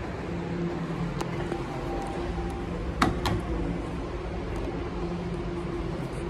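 Steady low hum of subway station ambience and machinery, with one sharp click about three seconds in and a fainter one a little after one second.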